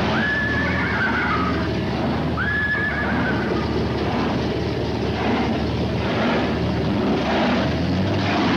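Cruising cars' engines running low and steady at slow speed, including a supercharged hot rod. Two high calls that rise, hold and fall sound in the first three seconds.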